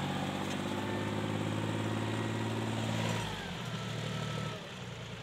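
John Deere 5050D tractor's three-cylinder diesel engine running under load while pulling a trailer heaped with soil. The engine note is steady, then eases off and drops lower about three seconds in.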